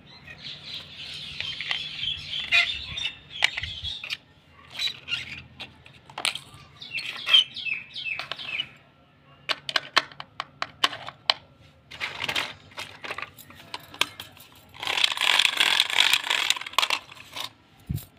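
Small hollow plastic toy pieces being handled, clicking and clacking against one another, with three bouts of rustling.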